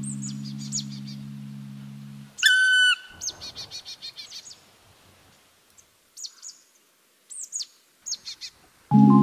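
Bird calls over fading background music: a loud short call about two seconds in, a quick run of chirps, then a few sparse falling chirps, before the music comes back in near the end.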